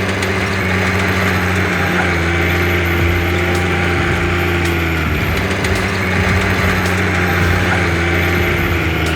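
A heavy machine's diesel engine running steadily under load, its pitch shifting slightly a couple of times, with a few faint cracks.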